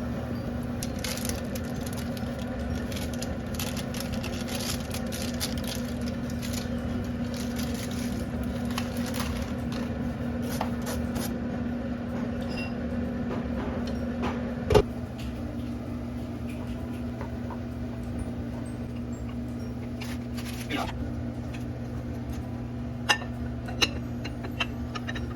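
Kitchen cooking sounds: scattered clicks and scrapes of utensils over a steady low electrical hum, one sharp knock about fifteen seconds in, and a few light clinks near the end.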